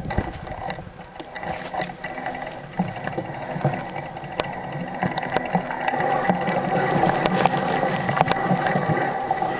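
Bicycle ridden over a bumpy dirt trail, its chain, drivetrain and frame rattling and clicking in a quick, irregular clatter, louder in the second half.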